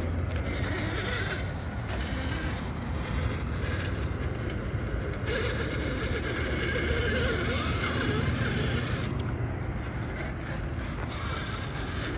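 Electric radio-controlled mud-bogging truck driving through mud: its motor and gears whir, rising and falling in pitch, and its tyres scrape and churn through the muck, busiest about halfway through.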